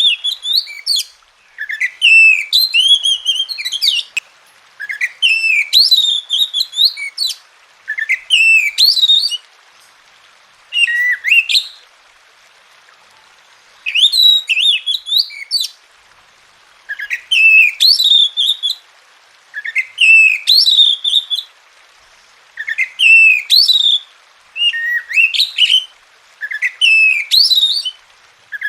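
Oriental magpie-robin (kacer) singing: short phrases of sliding, whistled notes, each a second or two long, separated by brief pauses, with a longer pause about halfway through.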